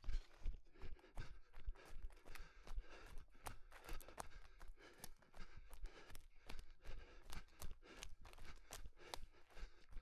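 An orienteer's running footfalls on the forest floor, quick and regular at about three strides a second, with his hard breathing between them.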